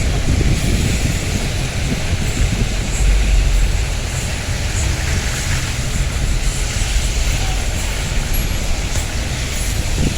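Steady rain hiss with wind buffeting the microphone in an uneven low rumble.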